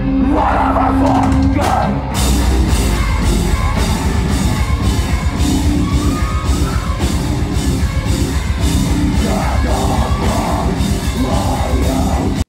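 Live rock band playing loudly in a club, with drums and vocals. The full band comes in harder about two seconds in and drives on with a steady, fast beat.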